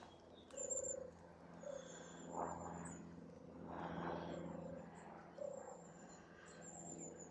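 Faint purring song of a European turtle dove: a few short, low, rolled notes, with a thin high-pitched tone coming and going above them.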